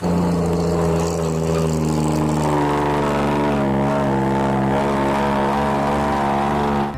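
Heavy dump truck engine running steadily as an animation sound effect, one even drone whose pitch lifts slightly a couple of seconds in.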